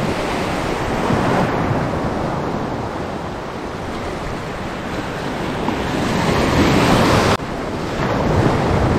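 Surf washing against the shore, with wind buffeting the microphone. The noise swells and eases and drops sharply about seven seconds in.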